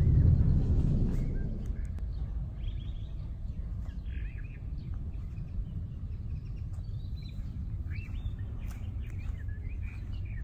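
Small birds chirping, many short repeated calls from about two seconds in, over a steady low outdoor rumble that is louder for the first second or so and then settles.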